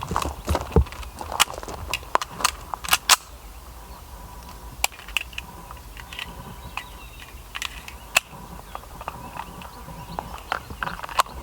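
Irregular sharp cracks of gunfire, several close together in the first three seconds, then single ones spaced out.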